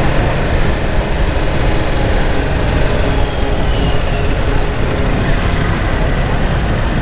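Yamaha YZF-R7's 689 cc parallel-twin engine running while the motorcycle is ridden at a steady pace, with an uneven wind rumble on the microphone.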